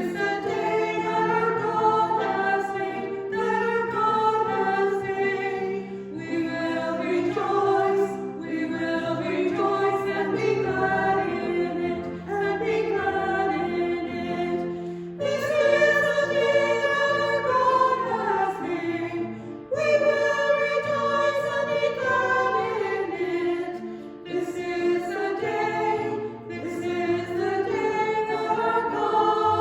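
A choir singing a hymn, in phrases of a few seconds each.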